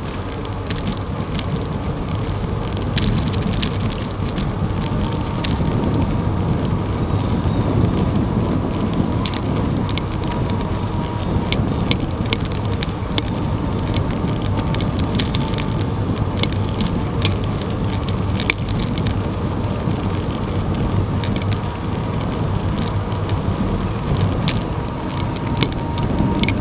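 Wind noise on a bicycle-mounted camera while riding on a paved road, with the hum of tyres on asphalt and many scattered small clicks and rattles from bumps in the road surface.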